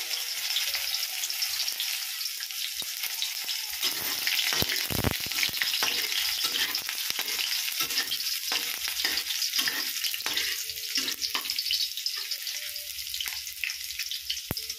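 Chopped onions sizzling in hot oil in a steel wok. From about four seconds in, a metal spatula stirs them, with repeated scrapes against the pan over the steady hiss of the frying.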